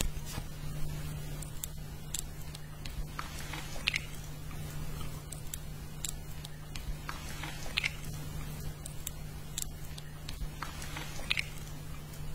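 Close-miked ASMR lip-care sounds: a cotton swab dabbing balm onto the lips, giving scattered soft moist clicks and crackles. A steady low hum runs underneath.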